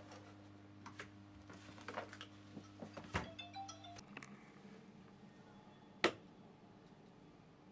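A steady low hum with scattered light knocks and clicks of objects being handled on a desk. One sharp click about six seconds in is the loudest sound.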